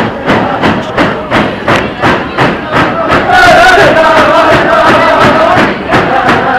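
Tlicho (Dogrib) hand drums beaten in a steady rhythm, about three beats a second, under the drummers' chanting song. Between about three and six seconds in, the chant swells into a loud, held line before dropping back to the drumbeat.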